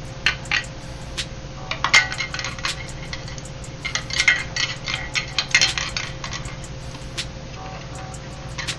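Quick clicks and light rattles of hard plastic parts being handled as the IP67 upgrade-kit gasket is pressed and snapped into a Ubiquiti Rocket LTU's housing. The clicks come in two busy clusters, about two seconds in and again around the middle, over a steady low hum.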